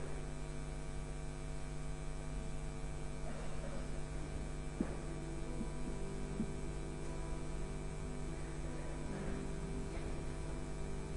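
Steady electrical mains hum with faint held tones underneath, and a single click about five seconds in.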